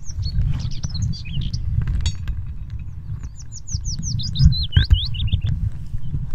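Low churning rumble of river water and gravel stirred by a hand scooping riverbed sediment underwater, with a few sharp knocks of stones. Over it a bird sings runs of quick, high, descending chirps, most densely a little past the middle.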